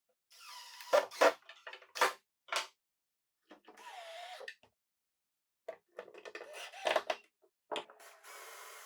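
Sharp wooden knocks and clunks from a plywood shelf and clamps being handled and nudged into place, with a few short stretches of hissing, scraping noise between them.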